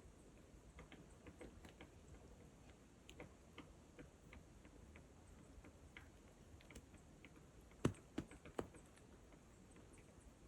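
Near silence broken by faint, irregular ticks and soft crunches of slow footsteps in light snow over leaf litter. Three louder sharp snaps come close together about eight seconds in.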